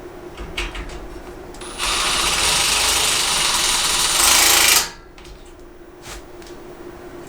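A power drill running for about three seconds, a little louder just before it stops abruptly, likely driving a fastener into the rack. A few light knocks of parts being handled come before and after.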